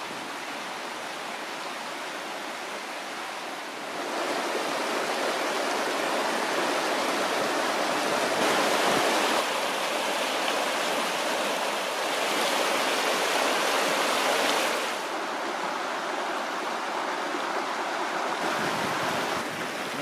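Fast-flowing upland river rushing and splashing over boulders: a steady, full rushing noise that grows louder about four seconds in and eases a little near the end.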